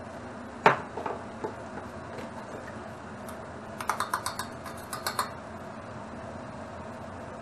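Seasoning bottles and a small stainless-steel bowl being handled on a kitchen counter: a sharp clack a little under a second in, a few lighter knocks, then a quick run of small clicks around the middle as a sweet sake bottle is opened, over a steady background hum.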